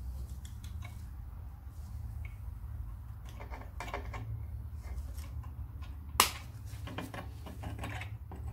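Small metallic clicks and scrapes as locking pliers work a drum parking-brake shoe return spring into place, with one sharp metallic snap about six seconds in as the spring goes on. A steady low hum runs underneath.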